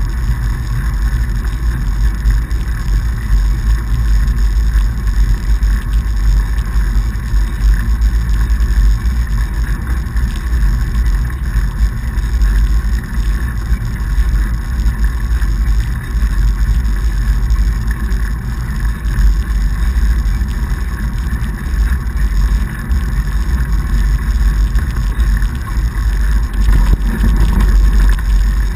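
Steady rumbling noise of a fatbike ride over packed snow: wind buffeting the camera's microphone mixed with the wide tyres rolling on snow.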